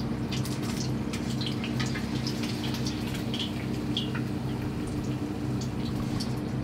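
Hot oil sizzling and crackling around starch-coated tofu cubes deep-frying, with scattered sharp pops over a steady low hum.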